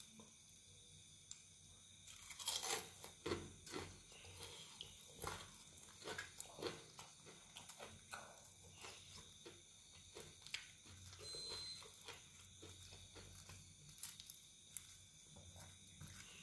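Crispy batter crust of fried chicken crackling and crunching in short, irregular bursts as a piece is pulled apart by hand, loudest about two to three seconds in.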